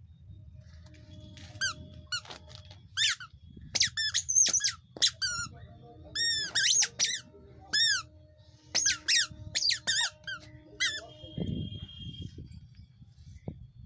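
A toddler's squeaky shoes chirping with its steps: a run of short, high, rising-and-falling squeaks, some in quick pairs, at an irregular walking pace that stops about 11 seconds in.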